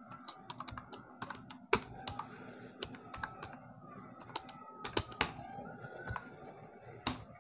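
Typing on a keyboard: a run of irregular, quiet key clicks as a short name is entered.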